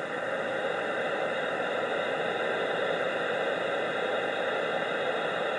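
Steady hiss of static from a walkie-talkie's speaker: an open channel carrying noise but no voice, with faint steady tones inside the hiss.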